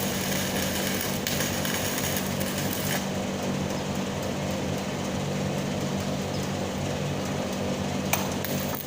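Stick-welding arc crackling and hissing over a steady low machine hum. The crackle drops away about three seconds in and starts again near the end.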